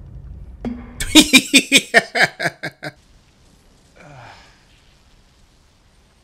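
A person laughing hard: a quick run of about ten 'ha' bursts, falling in pitch, starting about a second in and lasting under two seconds, followed by a short faint sigh.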